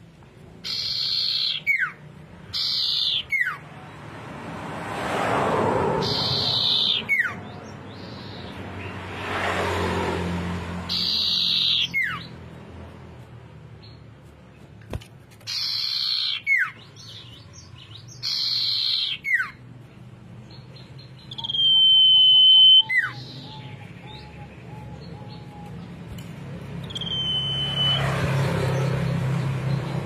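Common iora (cipoh) singing: a run of loud whistles, each falling sharply in pitch, repeated every couple of seconds, and twice a long steady high whistle, about two-thirds of the way through and near the end. A soft rushing noise swells and fades underneath.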